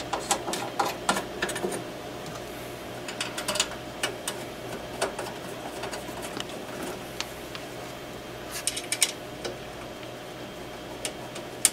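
Small metal set screws and a hex key clicking and tapping against an aluminum mounting plate as the screws are put back and turned in, in irregular clusters of light clicks over a steady faint hum.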